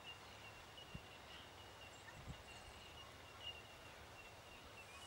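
Near silence: faint outdoor ambience with a thin, steady high-pitched tone broken by small chirps, and a few soft thuds.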